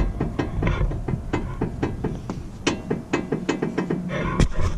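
Rapid, even knocking, about five or six knocks a second, as the Ford F-150's front wheel is rocked back and forth: play in a worn control arm ball joint, which the owner names as the problem behind the noise when turning and braking.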